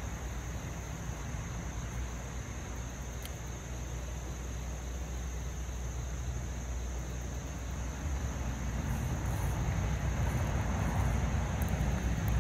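Road traffic on a main road: a steady low rumble of passing vehicles, swelling over the last few seconds as a vehicle draws closer.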